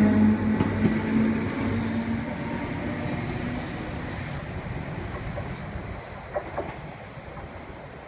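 Class 317 electric multiple unit departing and passing close by: a steady low motor hum that fades out within the first few seconds, two brief high-pitched wheel squeals, then the train's running noise dying away as it recedes.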